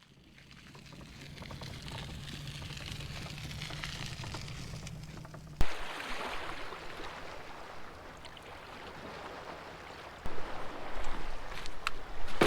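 Water splashing and lapping, fading in, with a low steady hum underneath for the first half. A sharp click comes about five and a half seconds in, where the sound changes. Louder low rumbling and knocks start near the end.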